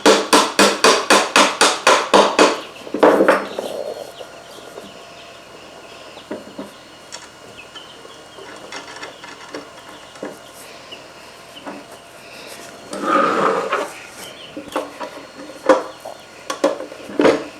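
A quick run of about a dozen metallic clacks, roughly six a second, then scattered knocks and clinks of steel parts and tools being handled during assembly, with a longer rattling scrape about thirteen seconds in and a few sharp knocks near the end.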